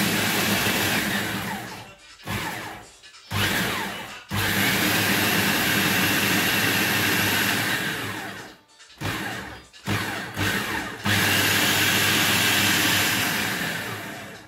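Electric kitchen blender pulsed in bursts, coarsely chopping fresh peppers and onion with no added water. The motor runs in about six stretches of one to four seconds, with short stops between.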